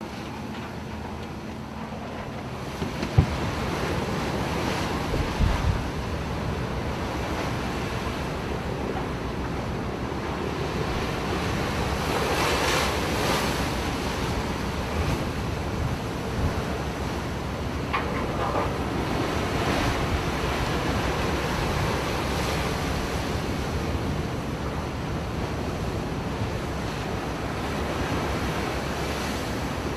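Wind buffeting the microphone over a steady outdoor rush, with a few sharp thumps about three and five seconds in.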